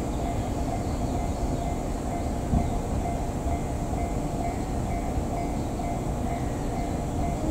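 Shinano Railway 115 series electric train approaching at low speed: a steady low running rumble with a faint hum, and one sharp knock about two and a half seconds in.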